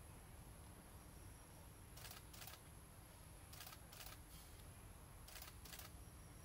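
Near silence broken by three pairs of faint short clicks, each pair about half a second apart and the pairs about a second and a half apart.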